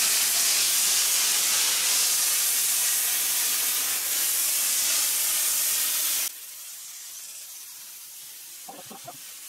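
Kärcher SG 4/4 commercial steam cleaner jetting steam from its wand nozzle onto a taiko drum's stretched skin: a loud, steady hiss that cuts off suddenly about six seconds in, leaving a much fainter hiss.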